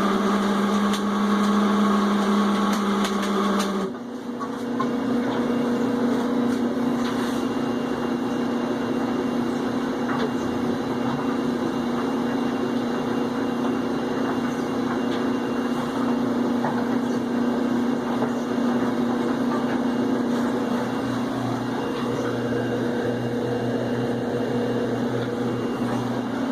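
Whirlpool Cabrio HE washing machine running with a loud, steady whine, its pitch stepping up slightly about four seconds in. The noise comes as the drain pump kicks on during the full-speed spin; the owner suspects a bad bearing in the drain pump or a coin lodged in it.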